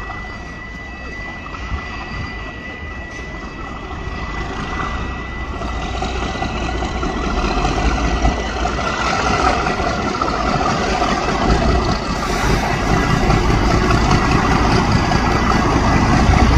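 Class 37 diesel locomotive with its English Electric V12 engine running as it hauls a train in, growing steadily louder as it approaches.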